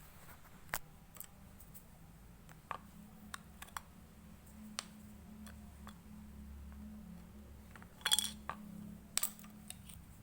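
Irregular small clicks and clinks, with a short cluster of them about eight seconds in, over a faint steady low hum.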